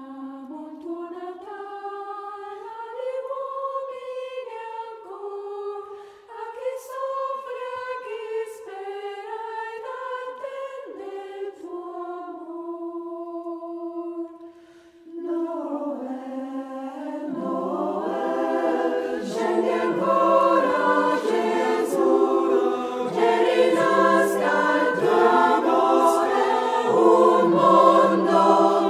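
A choir singing. It starts soft, with a few voices, dips briefly about halfway, then swells into fuller and louder singing.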